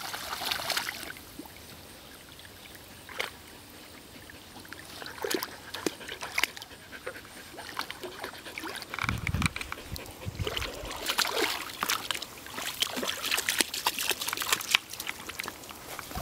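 Dogs swimming and paddling through lake water, with small splashes, drips and trickling water throughout, and a brief low thump about nine seconds in.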